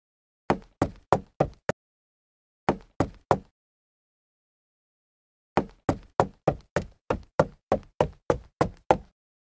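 Hammer blows driving a wooden peg into a joint of a cedar post: a quick group of about five sharp knocks, three more, then a steady run of about eleven knocks at roughly three a second.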